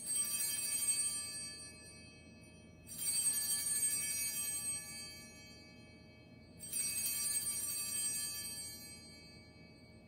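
Altar bells rung three times at the elevation of the chalice, each ring a bright jangle of high tones that dies away over about two seconds.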